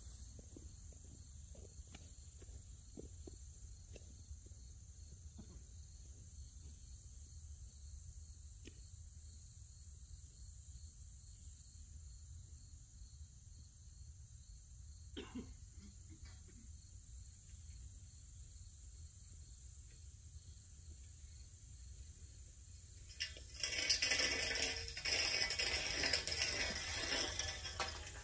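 Crickets chirring steadily in a high even tone over a faint low rumble, with a few faint clicks. About five seconds before the end a much louder rushing noise sets in and lasts to the end.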